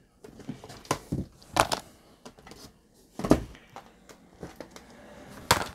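Clear plastic packaging of craft die sets being handled: light crinkling of plastic with several sharp taps and knocks, the loudest near the end.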